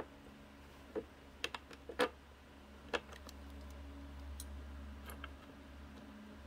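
Scattered sharp clicks and taps of small metal parts and a hand tool being handled on a wooden workbench, half a dozen separate strokes, over a low steady hum.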